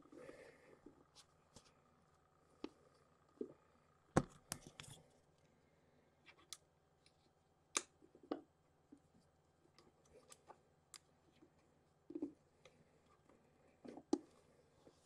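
Faint, scattered clicks and light knocks of small objects being handled at a workbench, a few of them louder than the rest.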